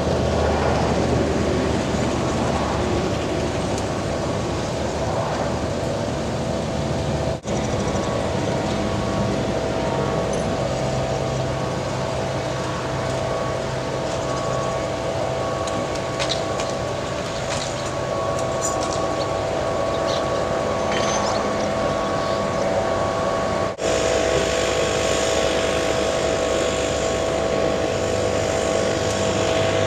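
Bucket truck engine running with a steady hydraulic whine as its ETI aerial boom is lowered and folded into its stowed rest. The sound cuts out for an instant twice.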